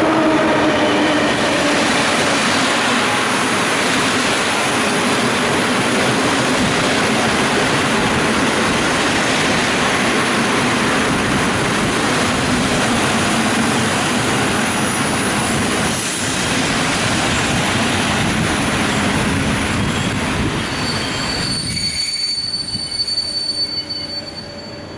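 Passenger train of Intercity coaches rolling past along the platform: a loud, steady rush of wheels on rails, with a falling tone at the very start as the locomotive goes by. About 22 s in the rush drops away and a thin, steady high squeal is left, typical of brakes as the train slows.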